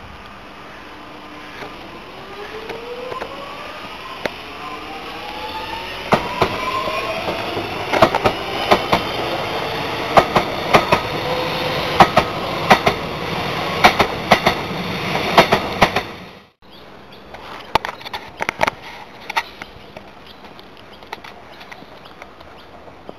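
X'Trapolis electric suburban train passing close by. Its motors give a whine that rises in pitch as it gathers speed. This is followed by a regular clacking of the wheels over the rail joints, which stops abruptly about two thirds of the way through, leaving only faint clicks.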